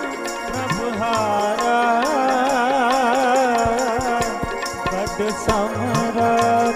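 Sikh kirtan music: harmonium and tabla playing between sung lines. A wavering melody is held through the middle, over steady harmonium notes and repeated bass strokes on the tabla.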